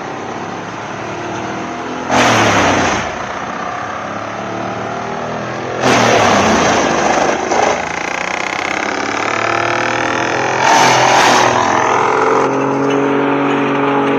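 Large industrial wood chipper running, its engine droning steadily, with three loud bursts of shredding noise as logs are fed in and chewed into chips by the blades.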